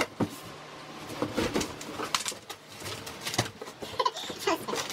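Large cardboard box being opened by hand: flaps rustling, scraping and creasing in irregular crackles.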